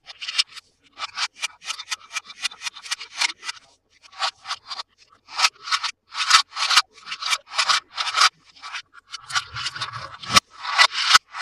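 Quick repeated rubbing and scraping strokes from hands working on toy packaging, with a couple of sharp clicks near the end.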